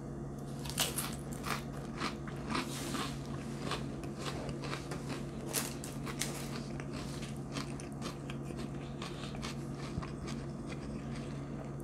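Close-up chewing of a mouthful of saltine cracker topped with a sardine, onion and cracked peppercorns: crisp crunches, frequent in the first half and thinning out later.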